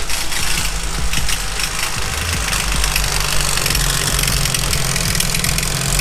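Turbocharged Acura Integra Type R B18C5 four-cylinder engine idling steadily with a fast, nasty ticking rattle from the timing belt area. The noise stays with the accessory belt removed, and the mechanic takes it for a failing timing belt tensioner bearing.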